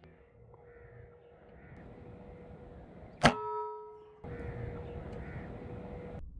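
A single shot from a Novavista Leviathan PSR2 Woodstock .22 air rifle about a third of the way in: a sharp crack with a brief metallic ring after it. Faint bird calls are heard in the background.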